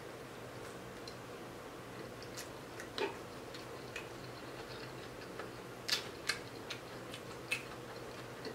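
Faint eating sounds from someone picking at and chewing crispy fried fish by hand: a few scattered soft clicks and smacks, several of them close together in the second half, over a low steady hum.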